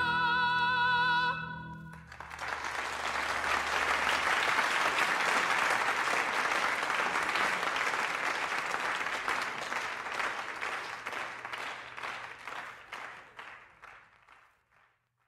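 A song's last held note, sung with vibrato over organ, stops about a second in. Audience applause then rises and fades away to nothing near the end.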